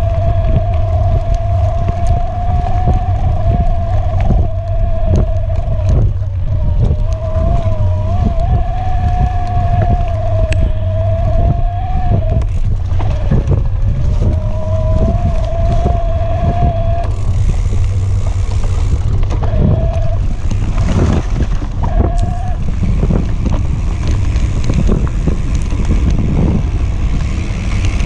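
Electric mountain bike riding a bumpy dirt trail: heavy wind rumble on the camera microphone and knocks and rattles from the bike over bumps, with the electric motor's whine wavering in pitch. The whine cuts out briefly a few times and stops about two-thirds of the way through, then returns for two short spurts.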